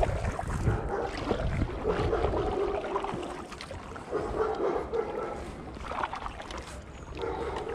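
Short animal calls in several bouts over a steady wind rumble on the microphone and kayak paddling.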